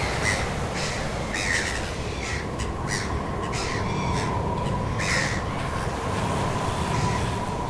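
Birds calling in short, separate calls, about one or two a second, over a steady low rumble and a faint held tone.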